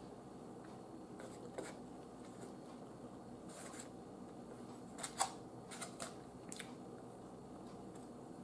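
Close-up eating sounds: chewing, with a few sharp clicks of a metal fork picking food off a plate, the loudest cluster about five to six and a half seconds in.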